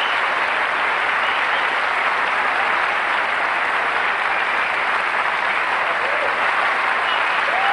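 Large audience applauding steadily, a dense, even clapping with a few faint voices calling out over it.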